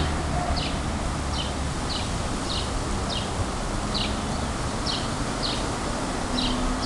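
A bird calling over and over: short, high, falling chirps at a steady pace of about one and a half a second, over a low steady hum and outdoor background noise.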